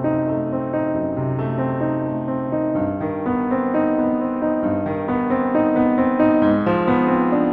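Background piano music: slow, held chords and a melody, the notes changing about every second.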